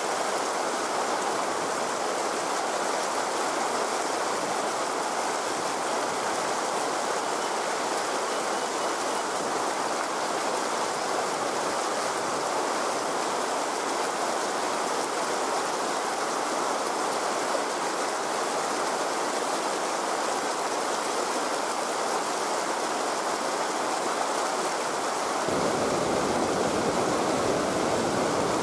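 Steady rushing of flowing river water. About three seconds before the end it becomes a little louder and fuller in the low range.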